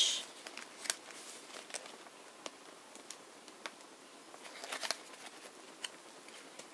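Paper pages of a handmade junk journal being turned by hand: faint rustles and soft ticks of coloured notepaper, with a small cluster of page sounds about five seconds in.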